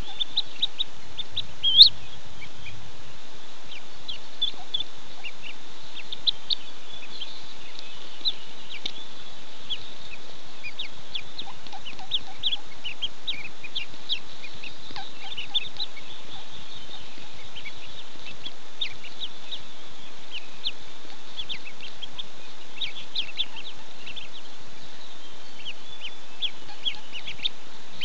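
Mallard ducklings peeping: many short, high peeps, one louder than the rest about two seconds in, over a steady hiss.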